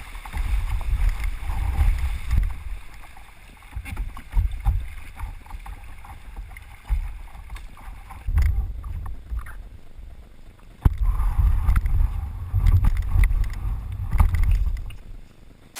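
Kayak being paddled down a river: paddle strokes and water splashing, with a few sharp knocks. Gusts of wind rumble on the microphone in uneven swells.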